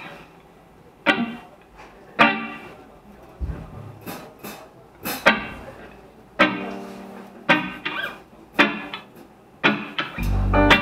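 Electric guitar struck in single chords about once a second, each ringing briefly, opening a song; near the end a bass guitar and the rest of the band come in.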